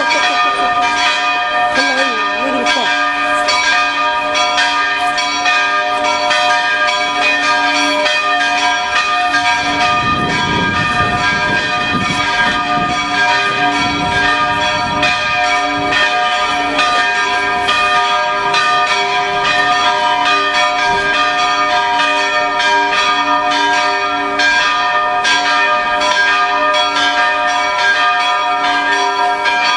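The church's tower bells ringing a continuous peal, many strikes overlapping into a steady, unbroken ringing.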